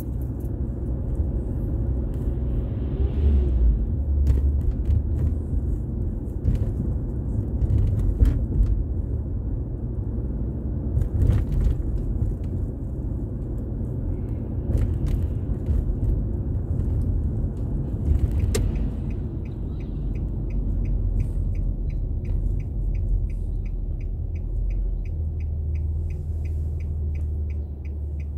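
A car driving on city streets: steady low engine and tyre rumble heard from inside, with scattered small knocks and clicks. About two-thirds of the way through, a regular series of short high beeps begins, a few per second, and the rumble settles into a steadier low drone near the end.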